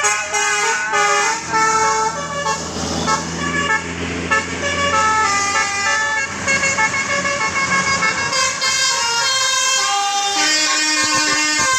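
A Basuri telolet multi-tone air horn on a bus playing a melody of short, stepped notes, one held pitch after another.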